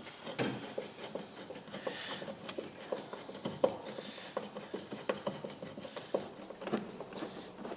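Irregular small clicks, taps and rubbing of metal parts and screws being handled while a headlight ring is fitted to a fibreglass wing.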